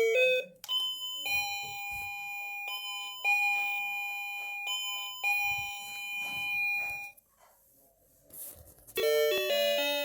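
Luckarm doorbell chime ringing three ding-dongs, each a higher note followed by a lower one, the notes held and ringing on. After a short pause, a quicker tune of many short notes starts near the end.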